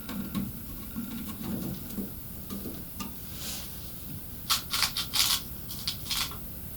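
Screw being driven by hand into a metal PC case panel: soft handling and rustling, then a quick cluster of sharp metallic clicks and scrapes about four to five seconds in, and one more a second later.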